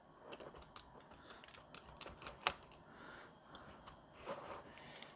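Faint scattered clicks and light taps of fingers handling an opened plastic power bank casing and its circuit board, with one sharper click about two and a half seconds in.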